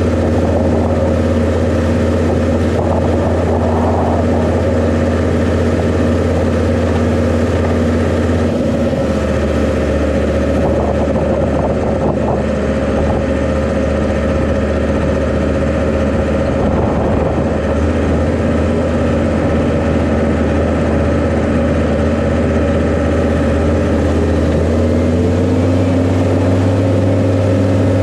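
Utility tractor's diesel engine running steadily under load while pulling a hay rake. The engine note drops slightly about eight seconds in and rises again near the end.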